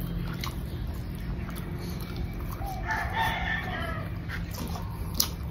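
An animal call, about a second long, a few seconds in, over a steady low hum, with a few short clicks.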